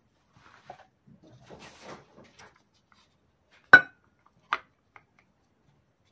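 Light scraping and rustling of chopped boiled egg being tipped out of a small clear container into a glass salad bowl. Then one sharp, ringing clink of the container against the bowl, and a smaller knock just under a second later.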